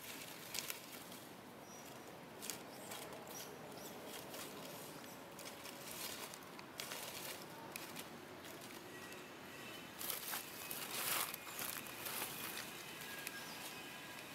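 Dry fallen leaves rustling and crackling as a pig-tailed macaque moves and picks among them, in irregular small crackles that grow busiest about ten to twelve seconds in.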